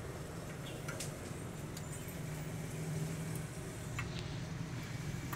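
Steady low mechanical hum, with a couple of light clicks about a second in and again near four seconds.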